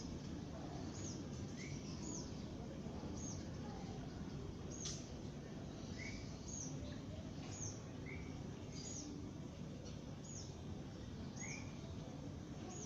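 Eurasian tree sparrows chirping: short, high single chirps about once a second, over a steady low background rumble.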